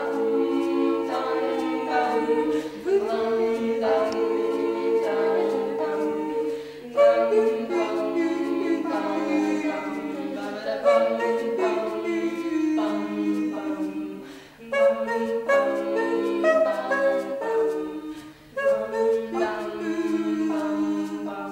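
A cappella vocal ensemble singing in close harmony, several voices in stacked parts with no instruments.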